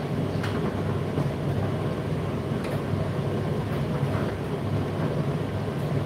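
Indesit IDC8T3 8 kg condenser tumble dryer running mid-cycle: a steady low hum of the motor and drum, with a few faint light clicks.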